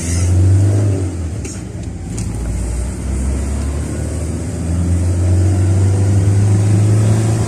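Car running along a road: a steady low engine hum with road noise, louder about half a second in and again through the second half.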